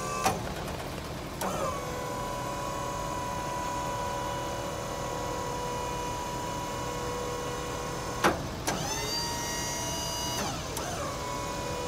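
Autocrane 5005EH electric-hydraulic crane's pump motor whining steadily as the boom telescopes out. There is a sharp click just after the start and another about eight seconds in. After the second click the whine rises in pitch for about two seconds, then drops back.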